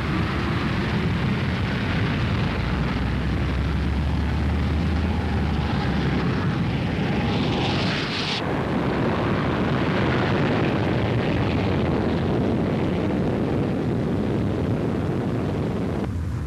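Messerschmitt Me 163 rocket motor running with its thrust raised for the takeoff roll: a loud, steady rushing noise, with a brief sharper hiss seven or eight seconds in.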